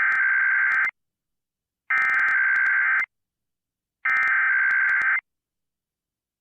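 Emergency Alert System SAME header: three bursts of digital data tones, each about a second long with about a second of silence between them. This data burst opens an EAS activation, here a required monthly test.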